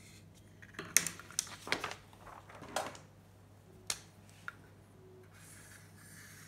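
A quick run of sharp clicks and taps, then two single clicks, from objects being handled on a hard surface. Near the end a whiteboard marker scratches softly across a whiteboard.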